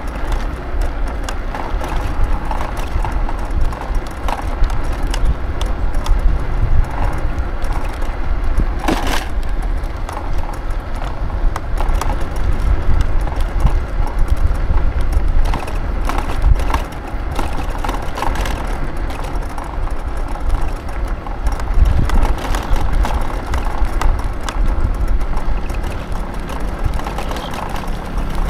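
Wind buffeting the microphone and road noise while riding an electric scooter, a steady deep rumble broken by knocks and rattles from bumps in the road, the sharpest about nine seconds in.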